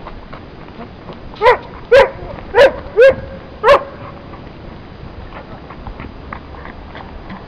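A dog barking five times in quick succession, the barks about half a second apart, starting about a second and a half in.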